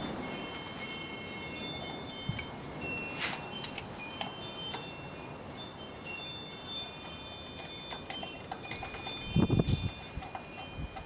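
Wind chimes ringing: many high, clear tones struck at random and overlapping. A dull knock sounds about nine and a half seconds in.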